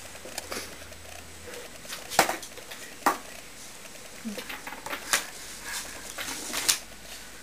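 Hard plastic toy knocking and clattering as a baby handles it on the floor: several sharp knocks a second or two apart.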